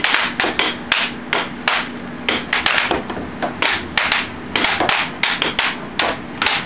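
Air hockey table's blower running under a quick, irregular run of sharp clacks: the puck being struck by the mallets and knocking against the table's rails.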